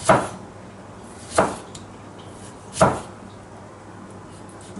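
Knife slicing tomatoes, knocking on the chopping board three times about a second and a half apart.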